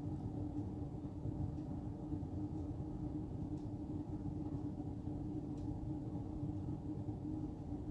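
Steady low background hum with one constant droning tone, and a few faint light ticks.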